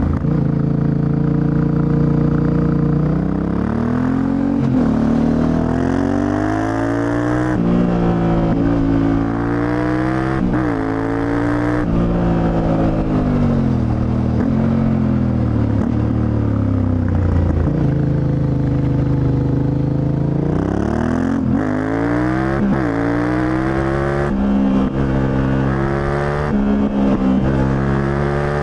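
Yamaha Ténéré 700's CP2 689 cc parallel-twin engine under way, revving up through the gears and easing off again: the engine note climbs, drops sharply at each quick shift, and falls away on the overrun, over and over.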